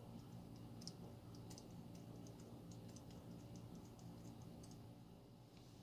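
Faint, scattered small metallic clicks and ticks from a disassembled baitcasting reel frame being handled, its levelwind and parts shifting in the fingers; the clicks stop about three-quarters of the way through, leaving a low steady hum.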